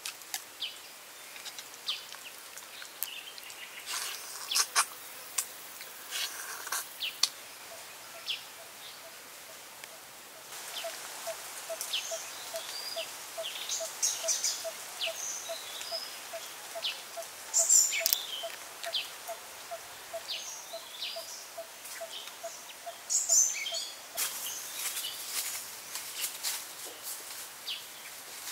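Forest ambience of birds chirping, with short high calls scattered throughout. Through the middle, a steady series of evenly spaced low notes repeats about twice a second.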